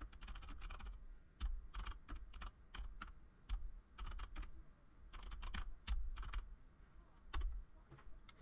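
Typing on a computer keyboard: irregular keystrokes, some in quick runs, as a command line is typed and entered.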